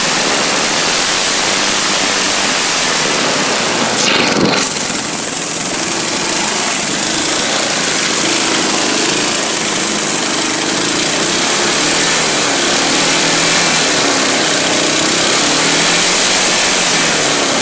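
Small engine of a custom-built yard mower running steadily, loud and full of hiss, with a brief rush about four seconds in.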